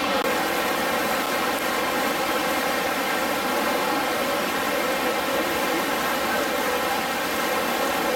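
Steady drone of a tour boat's engine, held at an even pitch, over the rushing noise of the waterfall and churning water.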